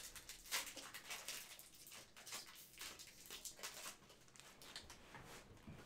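Faint crinkling and rustling of a trading-card pack's wrapper being opened and the cards handled, a run of short, irregular crackles.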